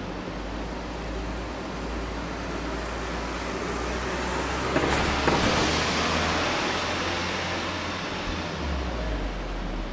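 Street traffic noise with a vehicle passing, swelling to a peak about halfway through and fading away over a steady low hum.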